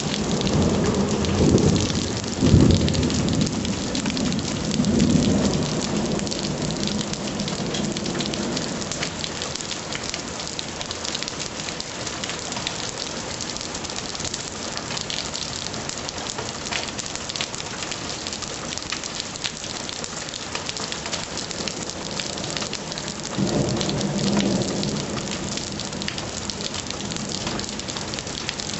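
Heavy rain pouring steadily onto a lawn and standing floodwater, a dense even hiss. Low rumbles of thunder swell through the first several seconds and come again a few seconds before the end.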